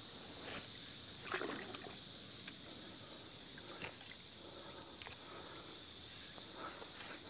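Faint sloshing and dripping of river water as a landing net is dipped into the river and lifted back out, with a few small splashes.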